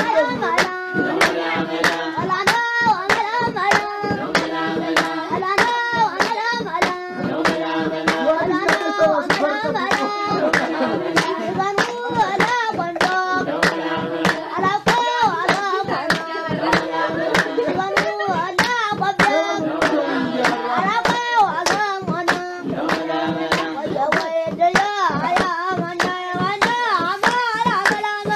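Voices singing a song to steady, rhythmic hand-clapping that keeps the beat throughout.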